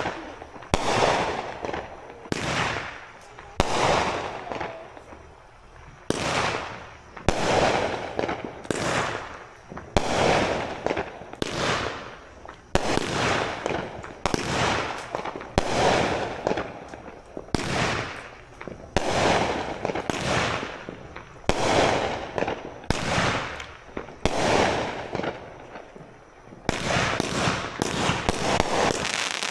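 Consumer aerial fireworks firing shot after shot, a sharp bang about every second or so, each trailing off. Near the end the shots come much faster, in a closing flurry.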